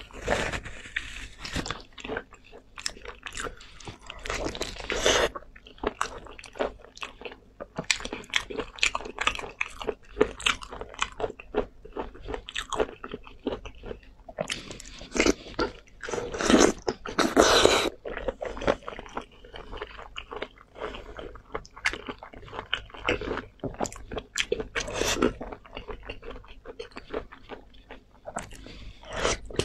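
Close-miked eating: a person biting and chewing braised meat in chili oil, a dense run of short, irregular mouth clicks and smacks, with a louder, longer stretch a little past halfway.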